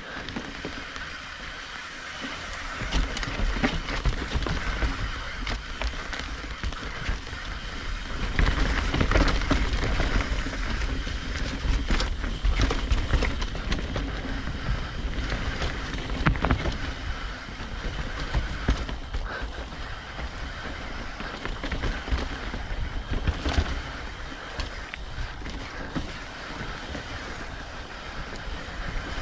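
Mountain bike rolling down a rough dirt trail: tyres on dirt and rocks with frequent knocks and rattles from the bike, over a steady rumble of wind on the microphone.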